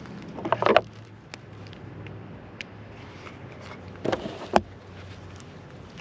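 Clicks and rustles from handling gear close to the microphone, in two short bursts about half a second in and about four seconds in, over a faint low steady hum.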